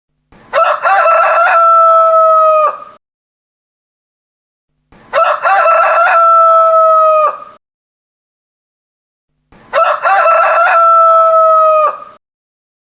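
A rooster crowing three times, about four and a half seconds apart. Each crow lasts about two and a half seconds: a broken, stuttering opening, then a long held note that drops off at the end.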